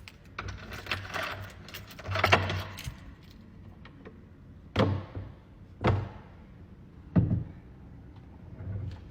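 A bunch of keys jingling and clicking as a door is unlocked, then three sharp thuds about a second apart.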